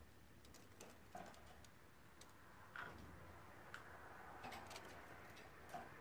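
Faint, irregular light clicks and ticks from a rosy-faced lovebird moving about its cage, with a few slightly louder taps about a second in, near the middle and near the end.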